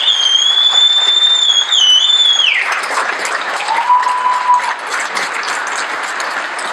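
Crowd applauding, with a long, high whistle held for about two and a half seconds at the start, then a shorter, lower whistled note about four seconds in.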